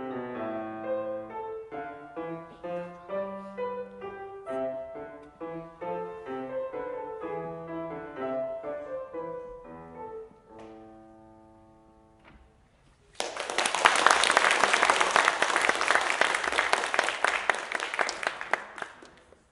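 A grand piano is played solo in a run of quick notes that ends about eleven seconds in on a held chord dying away. After a short near-quiet pause, audience applause breaks out, louder than the piano, and fades out near the end.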